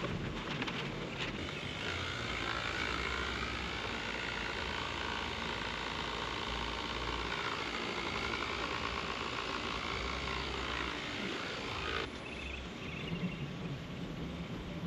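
WEN 6010 six-inch orbital waxer/polisher running steadily while buffing wax on the golf cart's body, then switched off abruptly near the end.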